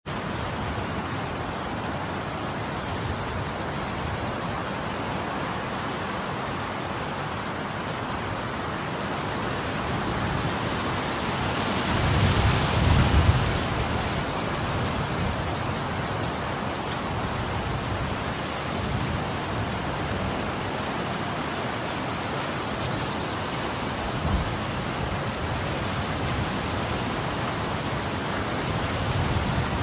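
Winter snowstorm: a steady hiss of wind and driving snow. It swells in a stronger gust about twelve seconds in, and wind rumbles on the microphone.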